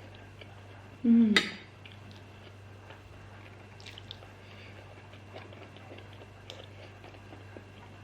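Cutlery clinking lightly on a plate and bowls during a meal, as scattered faint taps. About a second in there is one loud, short sound that falls in pitch and ends in a sharp click.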